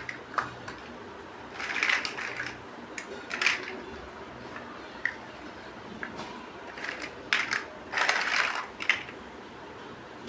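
Plastic toy building bricks being handled and snapped together: scattered sharp clicks and short rattling scrapes, with a longer rattle about eight seconds in.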